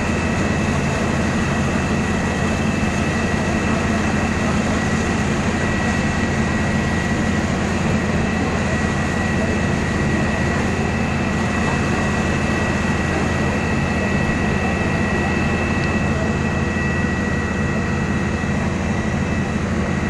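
Fire engine diesel engines running steadily at pumping speed to drive the hose and aerial-platform water jets: a constant low drone with a thin, steady high whine over it.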